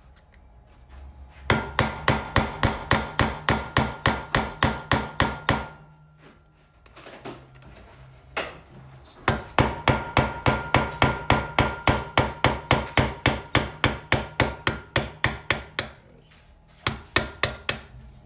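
Hammer tapping a nail held as a punch against a notch of a seized three-speed bicycle freewheel, metal on metal with a light ring, to drive it counterclockwise off the hub. The blows come in two long quick runs of about five a second, with a pause between them and a few single blows near the end.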